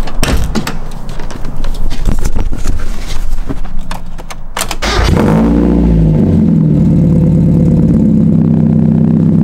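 Knocks and clicks of the car door opening and someone getting in. About five seconds in, the Mazda Miata's four-cylinder engine cranks and catches on a cold start, its revs briefly rising and falling, then it settles into a steady idle.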